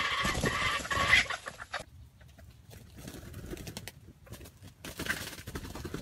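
Red junglefowl rooster crowing, one drawn-out call that ends about a second and a half in; after it only faint scattered ticks and rustling.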